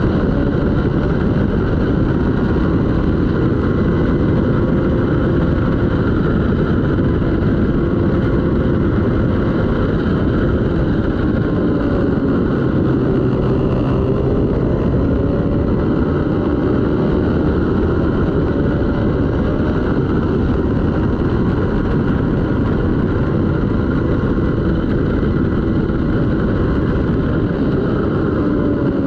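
Twin-cylinder racing motorcycle engine running hard under race load, its revs rising and falling as the rider works through the gears.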